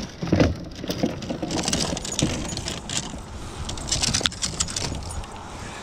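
Boots scuffing and crunching over a frost-iced boat deck, with clothing rustling close by and scattered light clicks and knocks.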